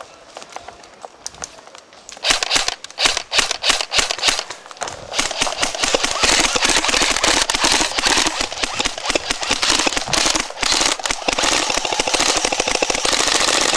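Airsoft guns firing. It starts about two seconds in with separate shots and short bursts, then becomes near-continuous rapid full-auto fire from about five seconds in.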